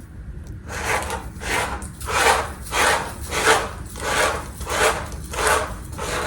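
Rhythmic rubbing or scraping strokes, about one every two-thirds of a second, repeating evenly.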